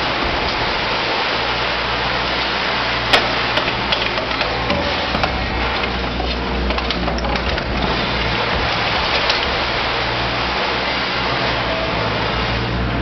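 Mac 1850 scrap baler crushing 6063 aluminium door-frame extrusions: continuous crackling and creaking of bending metal over a steady low drone of the machine, with one sharp crack about three seconds in.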